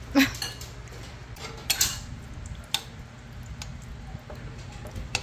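A metal utensil stirring mashed eggplant and saltfish in a glass bowl, scraping and clinking against the glass. There are a few sharp clinks, the loudest just at the start.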